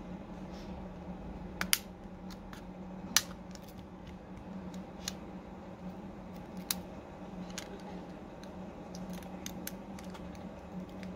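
Irregular sharp little clicks and taps of metal tweezers on the internal brackets and connectors of an opened Samsung Galaxy S20 Ultra; the loudest come about one and a half and three seconds in. A steady low hum runs underneath.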